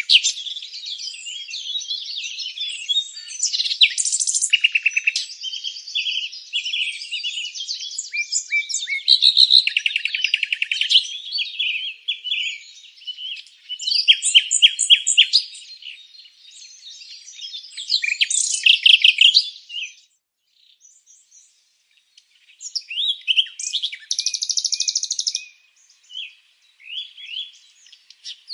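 Songbirds chirping and singing, with overlapping rapid trills and quick series of chirps, and a gap of about three seconds roughly two-thirds of the way through.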